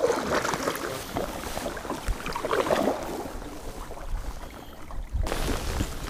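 Kayak paddle strokes splashing in the water as a sit-on-top fishing kayak pulls away from shore, with wind rumbling on the microphone in the last second or so.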